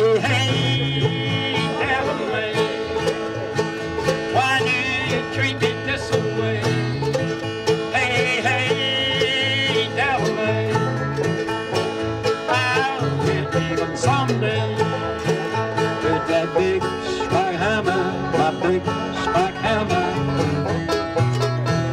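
Bluegrass string band playing, with banjo, mandolin, acoustic guitar and upright bass.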